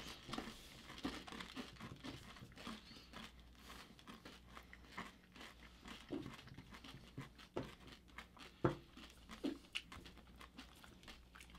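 Faint, irregular crunching and chewing of candy-shelled Reese's Pieces in the mouth, with one louder click about nine seconds in.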